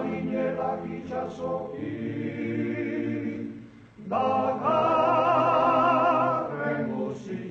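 Group of men singing a Basque song unaccompanied, in harmony. A first phrase gives way to a short break about four seconds in, then a louder chord is held with vibrato and eases off near the end.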